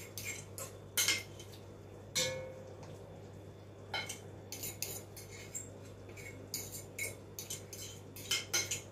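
A spoon scraping and knocking seasoning out of a bowl into a pot: a run of irregular clinks and scrapes, one with a brief ring just after two seconds in.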